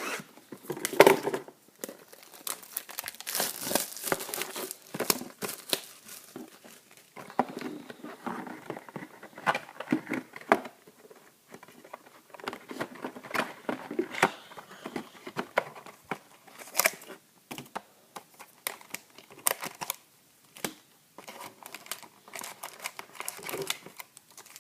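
Wrapping and packaging being torn and crumpled as a sealed box of trading cards is opened and emptied: irregular crinkling and sharp crackles.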